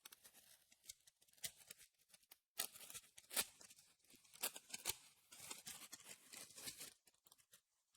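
Faint crinkling and crackling of a foil trading-card booster pack wrapper being handled and torn open, with cards shuffled in the hand. The crackles come in quick, irregular clusters and thin out near the end.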